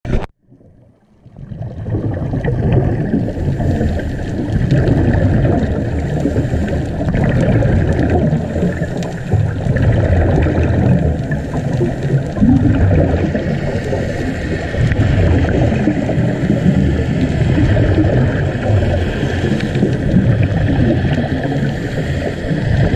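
Muffled underwater rumble and water noise picked up by a GoPro inside its waterproof housing while diving, dense and low and rising and falling unevenly. A brief sharp knock comes at the very start, then about a second of quiet before the rumble comes in.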